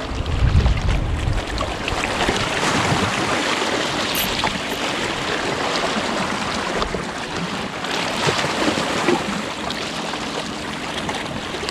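Small sea waves lapping and washing against shoreline rocks, a steady wash of water noise, with wind buffeting the microphone for about the first second.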